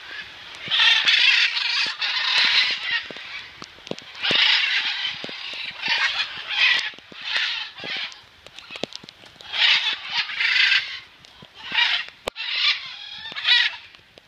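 Macaws squawking: repeated harsh, raspy calls, each about half a second to a second long, with short gaps between them.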